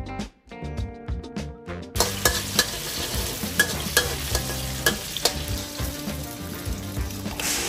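Background music for about two seconds, then tofu cubes sizzling in hot oil in a steel wok, with several sharp clinks and scrapes of a metal spatula against the wok. Near the end the sizzle swells as beaten egg is poured into the hot oil.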